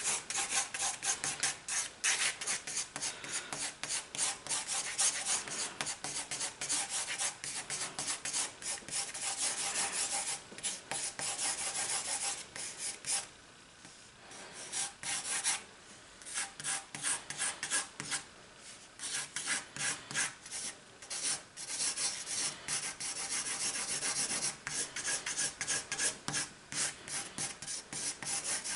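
Pencil scribbling rapidly on sketchbook paper in fast looping strokes: a dense, scratchy rubbing that stops for a couple of seconds about halfway through, then resumes.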